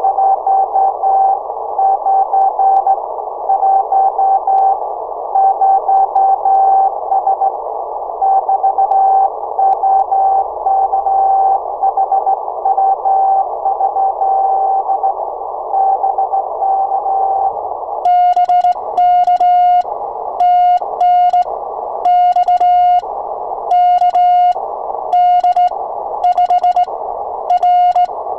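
Morse code (CW) on an Icom transceiver. For about the first 18 seconds a keyed tone sounds through a narrow band of receiver hiss as the other station's dots and dashes come in. Then the hiss cuts out and the transceiver's sidetone keys clean dots and dashes while the operator sends on a sideswiper key.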